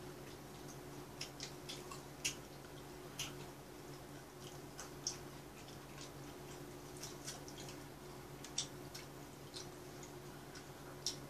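Faint eating sounds: irregular, crisp little clicks of chewing crunchy fried chicken gizzards and chopsticks tapping, about one every second or so, over a steady low hum.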